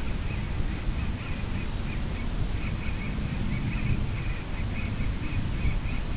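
Wind buffeting the microphone in a steady low rumble, with a quick run of short raspy chirps, about four a second, starting a little way in.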